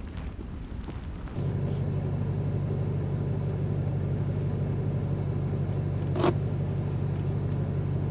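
Steady low hum of a vehicle running at idle, heard from inside the cab, starting about a second in; one sharp click comes about six seconds in.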